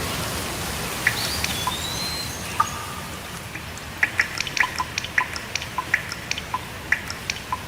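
Steady rain with large drops dripping in distinct plinks, sparse at first and coming quickly from about halfway through. A bird gives one short whistled call about a second and a half in.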